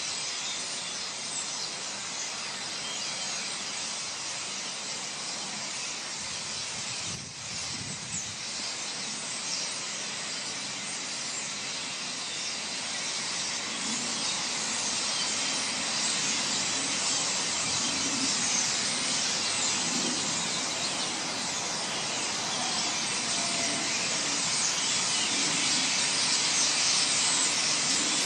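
A huge flock of common starlings in a murmuration: a dense, steady wash of high-pitched chatter from thousands of birds, growing louder near the end as the flock comes close overhead.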